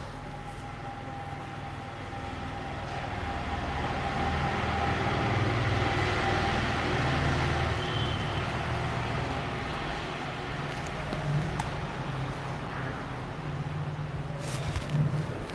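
A road vehicle passing by, its engine noise swelling to a peak about six seconds in and then slowly fading, with a few light knocks near the end.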